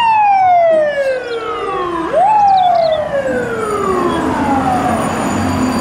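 Fire department ladder truck's siren: its pitch falls slowly, sweeps back up quickly about two seconds in, then falls slowly again, over street traffic noise.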